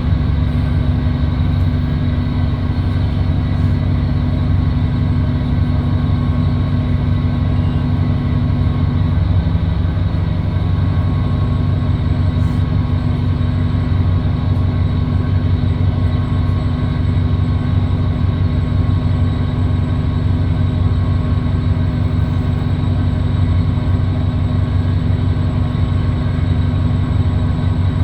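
Transit bus engine running steadily, heard from inside the bus: a loud, constant drone with several steady low hums, the weird engine noise the recording was made for.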